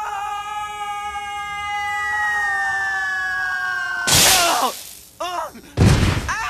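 A long drawn-out scream, its pitch sinking slowly, ends about four seconds in with a loud crash. Two more crashes follow about a second and a second and a half later, with short yelps between them.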